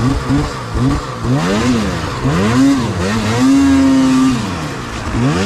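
Snowmobile engine revving up and down repeatedly while climbing, with the revs held high for about a second roughly three and a half seconds in.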